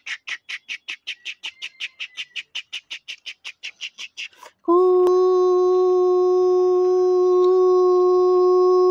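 Battery toy steam train's sound effects: a fast electronic chugging of about seven puffs a second. About halfway through this gives way to a steady, unchanging whistle tone.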